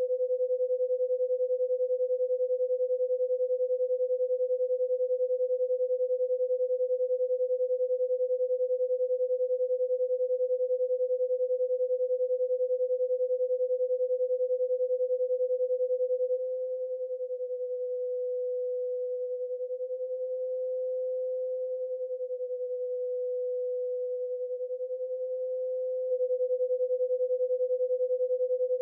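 A steady pure sine tone at about 500 hertz from the BeeOne brainwave-entrainment synthesizer, pulsing rapidly in volume under amplitude modulation. A little over halfway through, the pulsing gives way to a slow swell and fade about every five seconds as the modulation speed is turned down.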